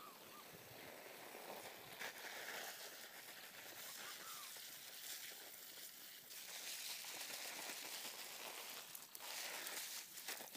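Garden hose spraying water onto soil in planting sacks, a hiss that swells and fades as the spray moves, with crackling of dry palm fronds being stepped on.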